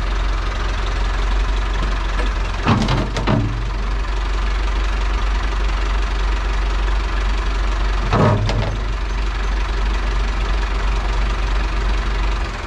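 Renault 70-34 tractor's diesel engine running steadily, with two brief louder sounds about three and eight seconds in.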